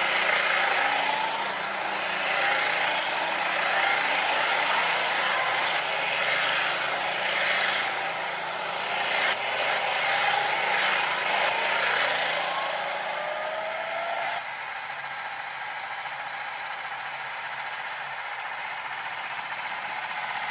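Several rental go-karts with 270 cc four-stroke engines accelerating away and driving past, engine notes rising in pitch again and again. About fourteen seconds in, the sound drops to a quieter, steadier engine drone.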